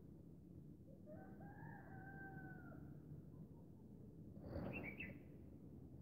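Faint, distant rooster crowing once, a single drawn-out call of about two seconds. A little later comes a brief, slightly louder burst with a few short high bird chirps.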